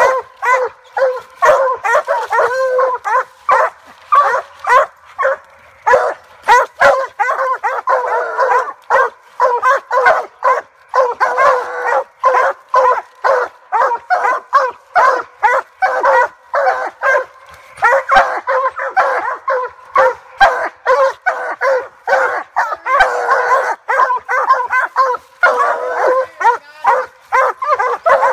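Several Treeing Walker coonhounds barking treed at the base of a tree, a fast, unbroken run of overlapping barks and bawls: the sign that they have a raccoon treed.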